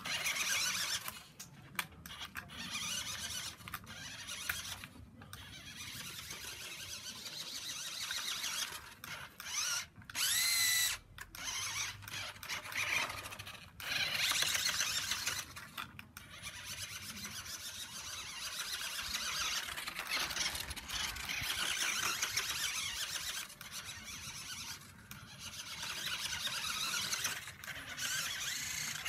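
Small toy-grade remote-controlled car's electric motor and drivetrain whining in short spurts as the throttle is pushed and let off, the high-pitched whine rising and cutting out again and again.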